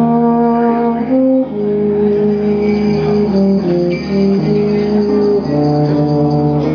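Tubas and euphoniums playing a Christmas tune together in harmony, with held brass chords that change roughly once a second.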